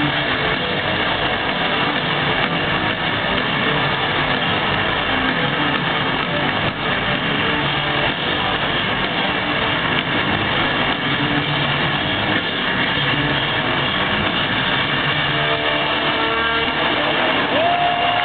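Rock band playing loudly in an arena, a dense wash of distorted electric guitar, bass and drums picked up by a crowd-held camera. Near the end a steady high tone comes in and holds.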